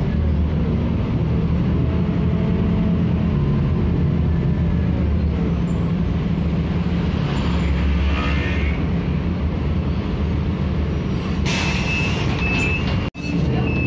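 Scania K310IB bus engine heard from inside the cabin, running with a steady low drone as the bus travels and slows. About two-thirds of the way in there is a short, sharp hiss of released air as the bus comes to a stop.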